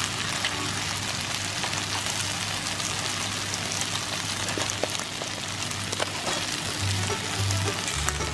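Corn kernels frying in butter in a pan: a steady, dense sizzle with scattered small pops and crackles.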